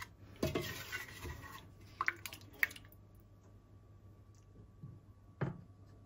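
Cooking pot and utensils clinking and scraping: a short stretch of clatter in the first second or so, a few sharp clinks about two seconds in, and a dull knock about five and a half seconds in.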